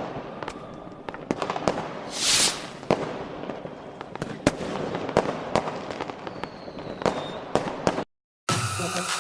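Fireworks going off: a rapid, irregular string of sharp cracks and pops, with a loud hissing burst about two seconds in. The fireworks cut off near the end and music with a beat starts.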